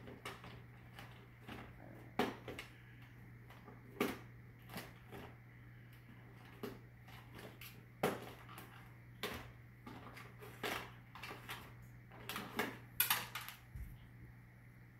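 Cat rummaging among packets and objects on a dish-rack shelf: irregular light clicks, knocks and rustles as items are nudged and shifted, loudest in a cluster near the end, over a low steady hum. A dull low thump near the end.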